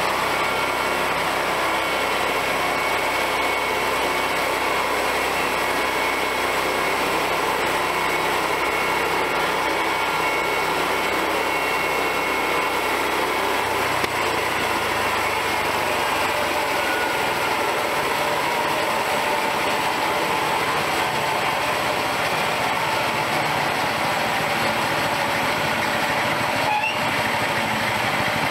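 Small gasoline engine of a homemade bandsaw mill running steadily, with a faint steady whine above it; the deep part of the engine sound drops away about halfway through.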